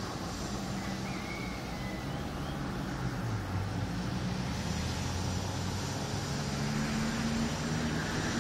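Steady outdoor town noise with the low hum of a motor vehicle's engine, drifting slightly in pitch and growing a little louder near the end.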